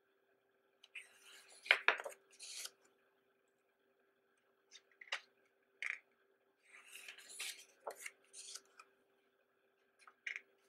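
Pages of a paper program book being turned by hand. There are two bursts of paper swishing and rustling, about a second in and again around seven seconds, with a few light taps and ticks of paper between and near the end.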